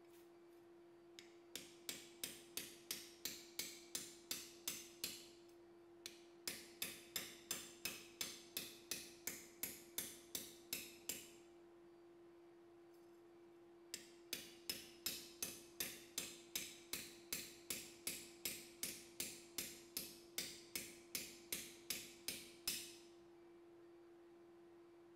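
Anyang pneumatic power hammer striking a knife blade in three runs of quick, even blows, about four a second, with short pauses between the runs. A steady hum runs underneath.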